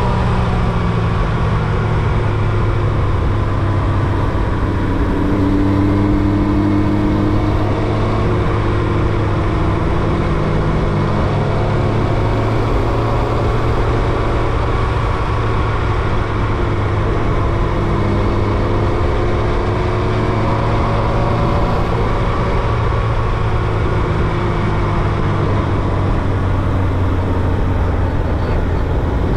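Carbureted Yamaha YZF-R1's inline-four engine running steadily as the bike is ridden, its note slowly rising and falling with the throttle.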